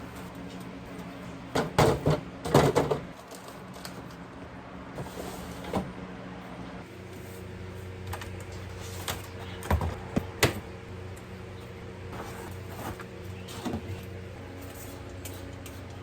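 Knocks and clatter of containers and fridge parts being handled and set down while a fridge is emptied for cleaning, in short bursts with the loudest cluster about two seconds in. A steady low hum runs underneath.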